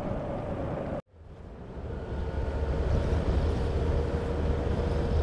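Motorcycle riding with steady engine and wind noise. About a second in the sound cuts out, then a Yamaha GTS1000's 1000cc four-cylinder engine fades back in as a low rumble with wind noise, running at low speed.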